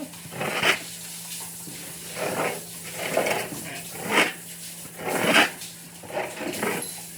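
Irregular scraping strokes on a floor, roughly one a second, each about half a second long, over a low steady hum.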